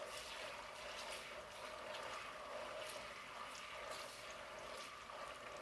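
Tomato paste frying in hot vegetable oil in a pot: a steady sizzle with small scattered crackles, cooking on low to medium heat.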